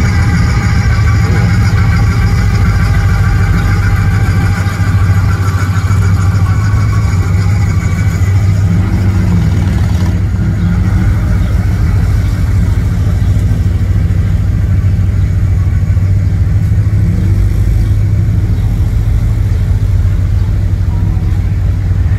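Engines of classic cars and trucks rolling slowly past in a line: a loud, steady low engine rumble.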